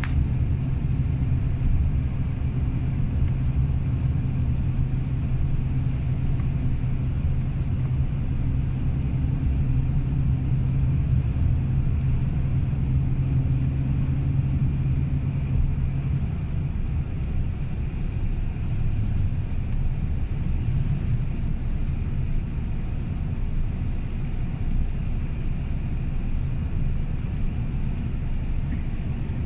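A bus driving: steady engine and road rumble heard from inside the passenger cabin. A steady engine hum sits on top of the rumble and drops away about halfway through.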